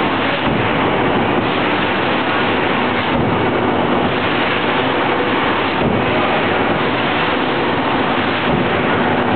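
Angelo Cremona rotary veneer peeling lathe running, its knife peeling a spinning log: a loud, steady rushing noise with a faint even hum underneath.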